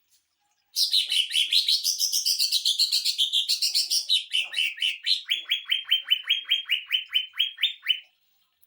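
Green leafbird (cucak ijo) singing its rapid 'sewing machine' burst: a fast, dense run of chattering high notes, then a string of about fifteen quick, evenly repeated sweeping notes that stops shortly before the end.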